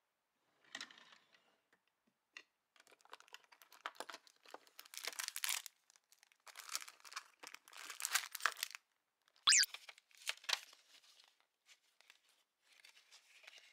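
Clear plastic card sleeves and bags crinkling and rustling in bursts as they are handled. A single sharp knock comes about nine and a half seconds in.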